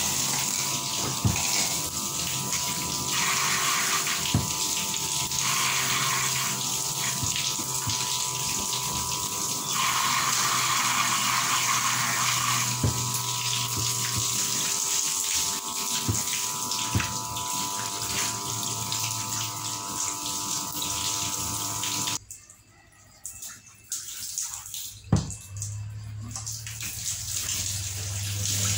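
Electric stainless-steel soybean grinder running with water flowing through it and out of its spout: a steady motor hum over the rush of water. The hum and rush cut off suddenly about three quarters of the way through, followed a few seconds later by a single sharp knock.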